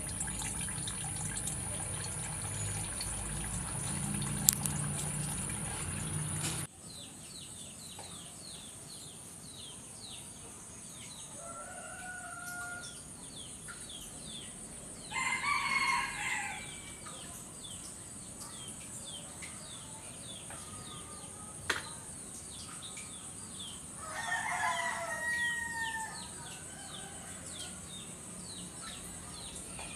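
A rooster crows twice, once about halfway through and again near the end, each crow lasting a second or two. A shorter call comes a few seconds before the first crow, and a fast run of faint high chirps carries on behind. The first few seconds hold a steady hum that cuts off suddenly.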